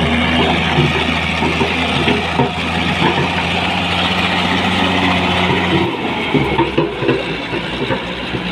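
Heavy diesel engine running steadily. About six seconds in, its low, even note drops away and the running turns rougher.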